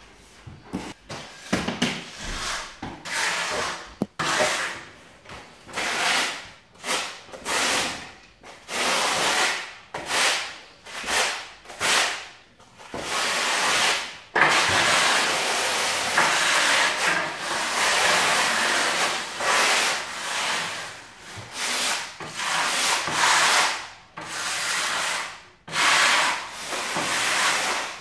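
Steel notched trowel scraping and combing tile adhesive, in a long series of rasping strokes, each about a second long, with one longer unbroken scrape near the middle.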